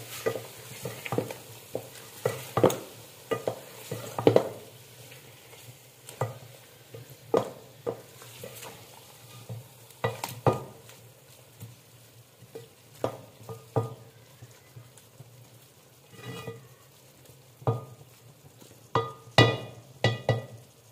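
A wooden spatula stirring and scraping boiled potatoes and fried fenugreek around a metal pot, with irregular knocks against the pot over a faint sizzle. A quick cluster of louder, ringing knocks comes near the end.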